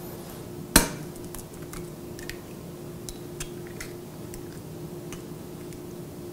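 A raw egg cracked once, sharply, against the rim of a ceramic bowl about a second in, then faint light clicks of the eggshell halves as the yolk is passed between them to separate the white. A faint steady hum lies underneath.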